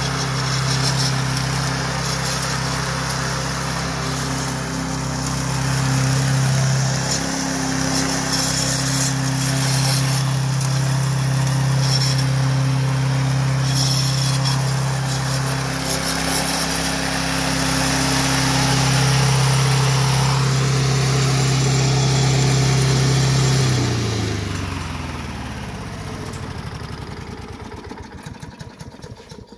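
Gas engine of a radio-controlled Poulan lawnmower running steadily. About 24 seconds in it shuts off, and the sound slides down in pitch and fades as the engine spins down to a stop.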